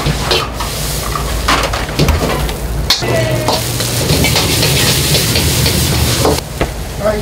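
Fried rice sizzling in a wok over a high gas flame, with a metal ladle scraping and clanking against the wok as it is stirred and tossed. Sharp knocks come at irregular moments over the hiss of the frying and a steady low rumble underneath.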